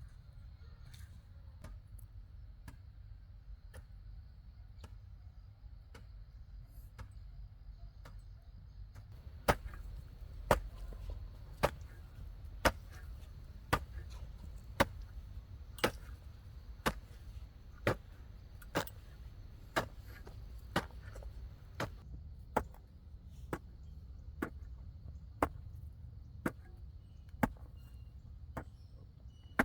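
A hand tool chopping with steady, evenly spaced strikes about once a second, starting about a third of the way in. Before that there are only faint, scattered light taps.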